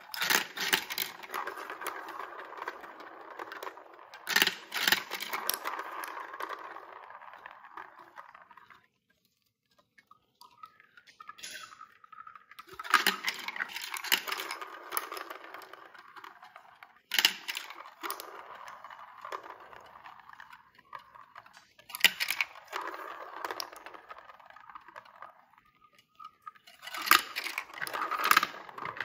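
Hollow plastic balls of a VTech Marble Rush marble run rolling around plastic funnels with a steady rattling roll, broken by sharp clacks as they drop through the holes onto the tracks below. The rolling stops and starts several times, with short quiet gaps.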